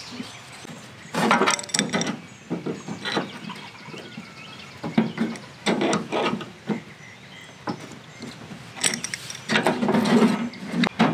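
Metal hydraulic fittings and adjustable wrenches clinking, rattling and scraping as they are handled and set down on a tractor's sheet-metal hood while plumber's tape is wound on and the fittings are screwed together. The clinks come in several short clusters.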